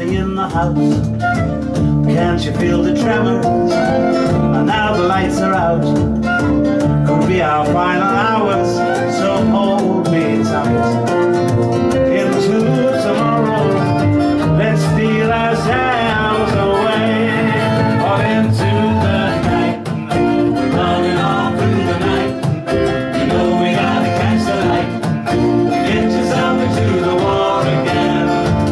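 Live folk band playing: a flute melody over a strummed acoustic guitar and a hand-beaten bodhrán frame drum.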